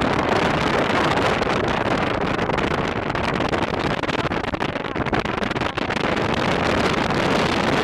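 Strong wind buffeting the camera microphone: a loud, steady rushing noise.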